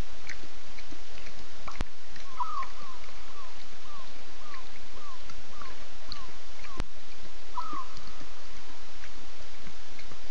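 Animal call over a steady hiss: a series of about ten short notes, each falling in pitch, repeated a few times a second, with a sharp click about two seconds in and another near seven seconds.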